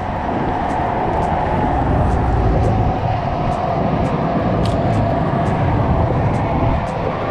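Steady, loud rumbling background noise with no distinct events, and faint ticks every fraction of a second on top.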